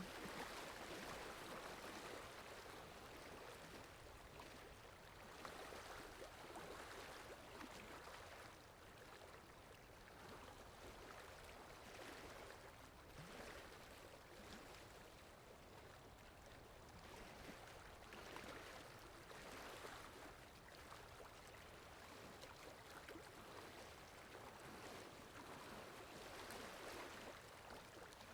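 Faint water sound effect: flowing water, a soft, even wash that swells and eases every several seconds.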